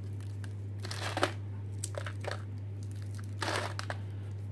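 Dehydrated beef mince crunching and crackling as fingers pick up and break the dry, crisp pieces on a plastic dehydrator tray: a few short, dry crunches, the longest about three and a half seconds in, over a steady low hum.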